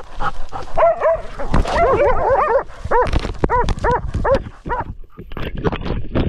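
West Siberian laikas barking up close at a bear, short arched barks overlapping about two seconds in, then single barks about two a second. Near the end, a rustling clatter of dry leaves as the dog runs.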